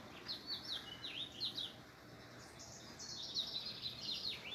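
Small songbirds chirping: quick, high chirps in two flurries, one in the first couple of seconds and another from about three seconds in.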